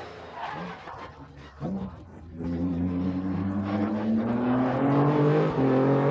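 Twin-turbocharged Honda C30A V6 of a time-attack Honda NSX at full throttle. Quieter at first, then from about two seconds in the engine note rises steadily as the car accelerates hard past.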